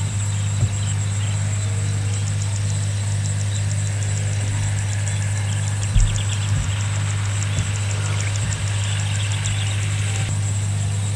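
Steady low hum with insects ticking and trilling over it.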